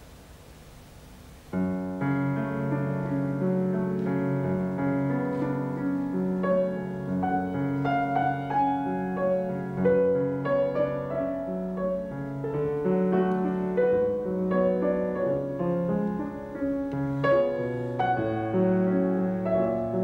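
Steinway grand piano playing a solo classical piece, starting about a second and a half in after a moment of faint hiss: chords over a low bass line with a melody above.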